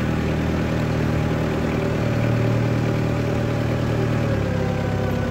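Vehicle engine running steadily, heard from on board, its pitch dropping slightly about four seconds in.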